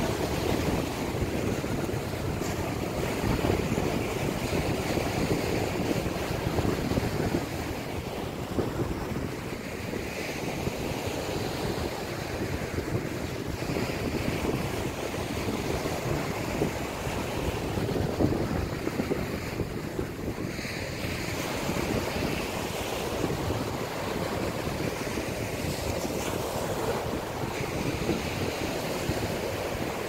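Small ocean waves breaking and washing up a sandy beach, with a hissing surge every few seconds. Wind is buffeting the microphone.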